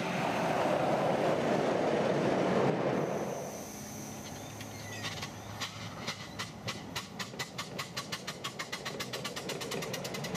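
Miniature railway train on the track: a loud rush of running noise for the first few seconds, then wheels clicking over rail joints in a rhythm that quickens from about two to about six clicks a second as the train gathers speed.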